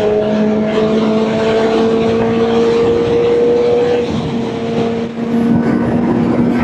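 Kawasaki Ninja ZX-4RR inline-four engine pulling hard at high revs at highway speed, its pitch climbing slowly, then easing off about four seconds in and picking up again near the end, under steady wind rush.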